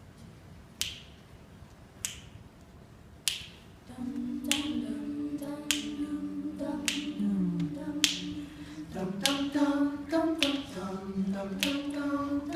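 Finger snaps keeping a slow, even beat, about one every 1.2 seconds, joined about four seconds in by an a cappella group singing sustained wordless chords.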